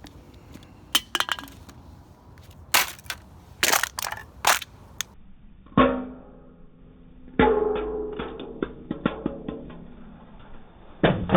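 Clanks and clatter of empty metal beer cans being handled and dropped together, with a few louder ringing metallic knocks in the second half.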